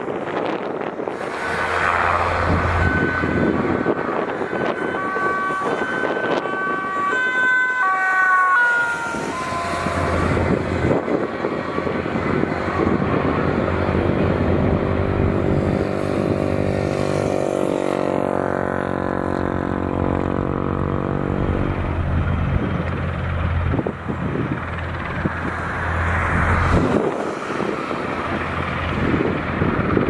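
NH90 helicopter running on the ground, its main rotor and twin turboshaft engines giving a steady low drone with a whine that shifts in pitch, under gusty wind noise on the microphone.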